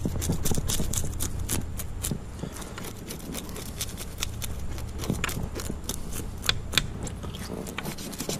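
A metal spoon scraping the scales off a pinfish (sailor's choice): a quick, irregular run of rasping scrapes. The fish's scales are tough and come off hard.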